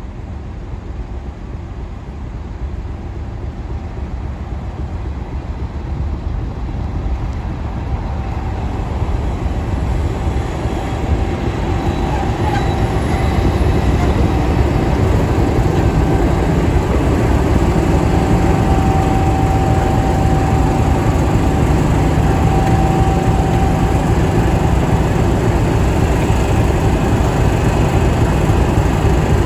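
GBRf Class 50 diesel locomotive 50007 'Hercules' drawing slowly alongside. Its English Electric engine grows louder over the first half as it approaches, then runs steadily as the locomotive passes close by, with a thin steady whine over it in the second half.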